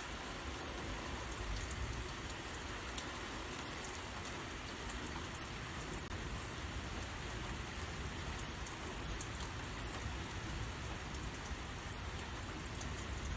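Heavy rain falling steadily: an even hiss with scattered sharp drop ticks over a low rumble.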